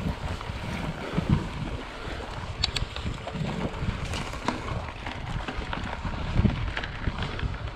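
Wind buffeting the camera microphone over the rolling noise of a Trek Fuel EX 5 full-suspension mountain bike riding over dry grass and gravel, with scattered sharp clicks and knocks from the bike on the rough ground.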